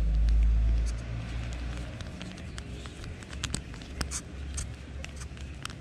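Light, scattered clicks of a screwdriver turning a small screw into the body of a Shimano Sienna spinning reel, over a low rumble that is loudest in the first second.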